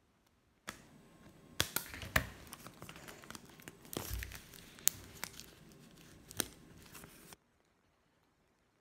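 Paper being handled and folded, crinkling, with several sharp crackles and clicks. It starts suddenly under a second in and cuts off abruptly near the end.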